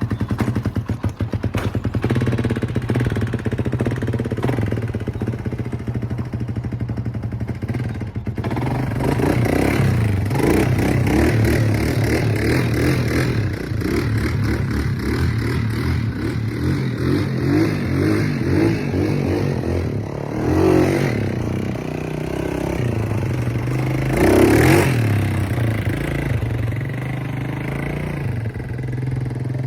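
1987 Kawasaki Mojave 250 ATV engine running while being ridden, the revs rising and falling with the throttle, with two sharper rev-ups in the latter part.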